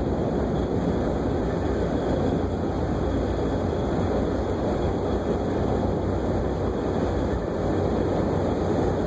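Jeep Wrangler TJ engine running steadily after a cold start, with a constant low hum under a dense even mechanical noise. This is the noise the owner hears on startup and which goes away once the engine warms up; its cause is unknown.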